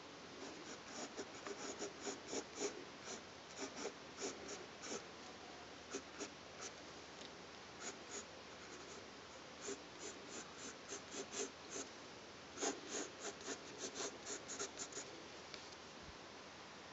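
Graphite pencil sketching on paper: quick, short scratching strokes in bursts of several a second, with brief pauses between bursts, stopping about two seconds before the end.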